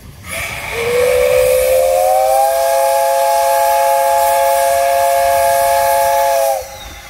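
JNR Class 8620 steam locomotive No. 8630's steam whistle blown in one long blast. It opens with a rush of steam hiss and then sounds as a chord of several tones that slide up slightly before settling. The note is held for about six seconds and cuts off abruptly.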